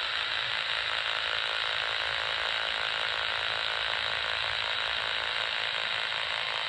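Philips pocket AM radio's speaker giving a steady rasping buzz as it is held just over the lawn. This is the pulsed loop signal of a Husqvarna Automower boundary wire, picked up through the grass, which shows there is still signal in the buried wire at this spot.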